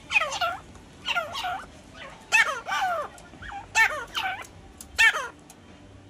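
Grey francolin calling in a loud series of repeated call notes that fall in pitch, in about five groups roughly a second apart.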